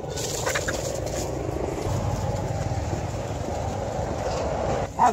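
Steady low rumbling noise, even throughout, with no distinct barks or voices.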